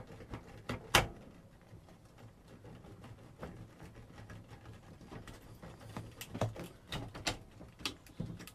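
Light clicks and knocks of a CRT neck board being worked off the tube's neck by hand, with one sharp click about a second in and a run of smaller clicks near the end.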